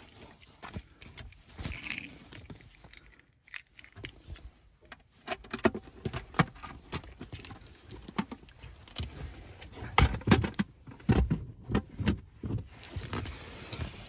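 Close handling noise: rustling with a run of sharp clicks, taps and small metallic knocks. It is sparse at first and gets busier and louder from about a third of the way in.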